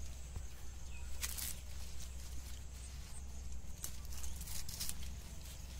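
Maize leaves rustling and crackling in short bursts as the plants are pushed aside and handled, over a steady low rumble.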